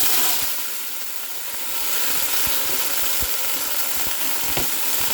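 Shrimp shells and heads frying in very hot oil, a loud steady sizzle that starts suddenly as they go into the pot.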